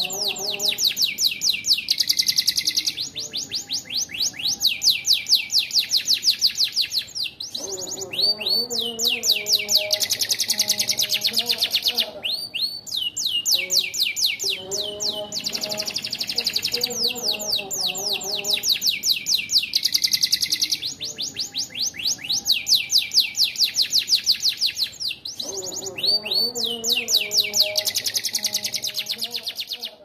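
Domestic canary singing: long runs of very rapid, high, rattling trills, broken by short pauses every few seconds. Its song carries phrases learned from the bar-winged prinia (ciblek).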